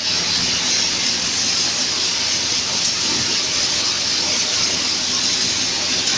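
Groundnut (peanut) processing machine running, a steady loud hiss with a faint low hum beneath.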